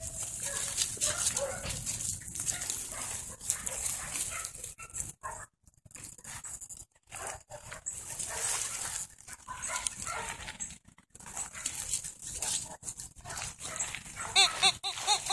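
Two corgi puppies playing rough in grass and leafy shrubs: scuffling and leaf rustling throughout, with a quick run of high-pitched puppy yips near the end.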